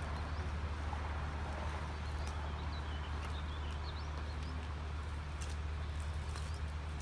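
Outdoor street ambience: a steady low rumble, with faint bird chirps from about two to three and a half seconds in and a few light clicks.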